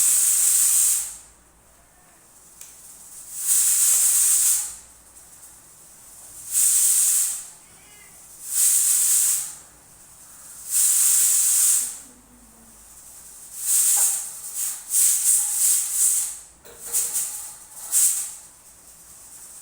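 Steam hissing out of the pot of rice cooking on the gas stove in repeated loud bursts, each about a second long and coming every two to three seconds. In the last third the bursts turn choppy and sputtering.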